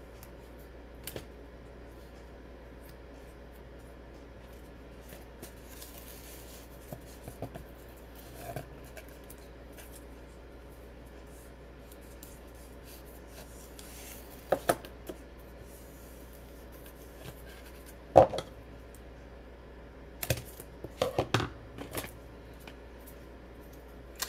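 Scissors snipping double-sided foam tape, a few short sharp cuts spread out between long quiet stretches. Small clicks and rustles come from the tape and card being handled. The loudest snip is about eighteen seconds in, with a quick run of them soon after.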